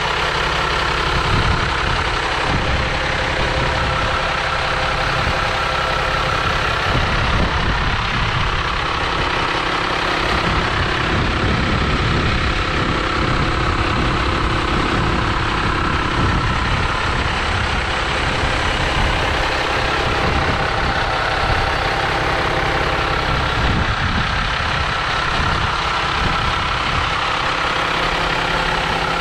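Diesel bus engine idling steadily.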